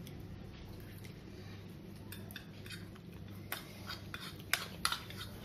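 A metal spoon clinking and scraping against a plate in a series of sharp clicks from about two seconds in, the loudest near the end, over a low steady hum.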